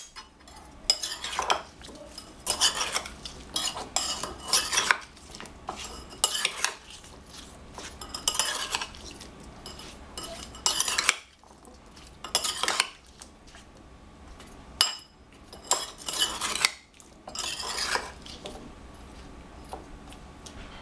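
Two spoons tossing sliced cucumbers in a bowl, the metal spoon heads clattering and scraping against the bowl and each other in repeated bursts with short pauses. The cucumbers are being mixed into a sweet-and-sour dressing.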